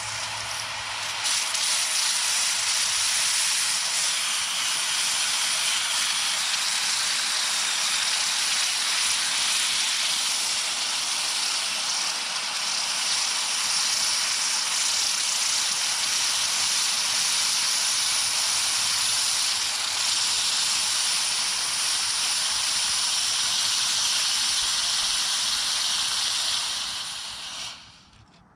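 Hot aluminum casting quenched in a bucket of water, the water boiling against the metal with a steady, loud hiss that dies away suddenly near the end as the metal cools.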